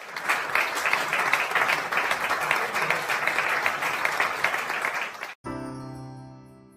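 Audience applauding, cut off suddenly about five seconds in by a short held musical chord that fades away.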